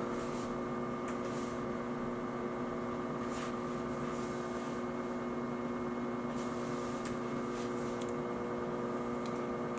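A steady electrical hum: several held tones over a faint hiss, with no change in level.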